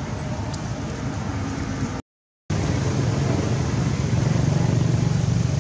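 Steady low rumble of outdoor background noise, like distant traffic or wind, that drops out completely for about half a second around two seconds in and comes back slightly louder.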